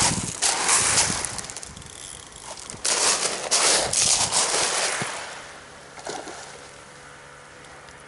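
Footsteps crunching on beach pebbles: a run of irregular steps in the first half, which stop about five seconds in, leaving only a faint steady background.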